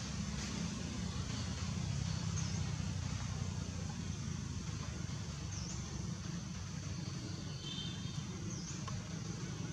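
A steady low engine-like hum, with a short high chirp about every three seconds.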